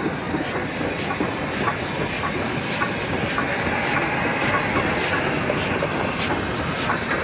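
C17-class 4-8-0 steam locomotive rolling slowly past at close range: a steady hiss of steam with the clatter and clicking of its wheels and rods on the rails.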